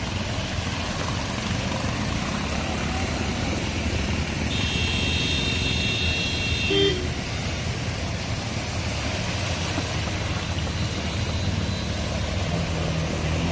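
Scooters and motorcycles running slowly through floodwater on a road, their engines humming over a steady wash of noise. A vehicle horn sounds for about two seconds midway.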